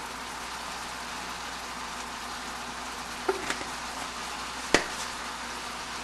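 Steady sizzling of a whole chicken searing on onions and garlic in a hot cast-iron Dutch oven. Two light clicks come a little after three seconds, and one sharp click just before five seconds.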